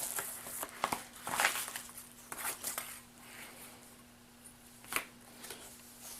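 Gift packaging being rummaged through and handled, crinkling and rustling in short bursts, busiest in the first three seconds, with a sharper click about five seconds in.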